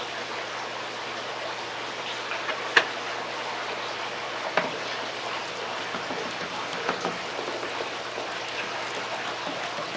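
Steady hiss with a few light clicks and taps from handling a plastic olive-oil bottle and a plastic tub of raw steaks, while oil is poured and rubbed onto the meat by hand.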